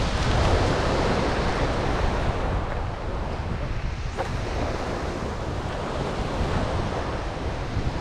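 Wind buffeting the microphone over the steady wash of sea waves on a shingle beach.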